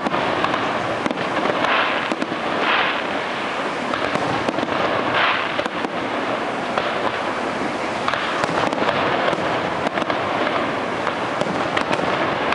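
Fireworks display: shells bursting with many sharp cracks and crackles, over a steady rushing noise that does not let up.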